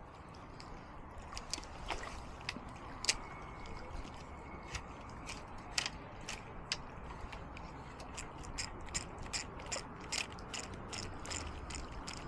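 Small spinning reel being cranked to retrieve a light lure, its gears giving a quiet run of fast, uneven clicks that grow quicker and more regular in the second half.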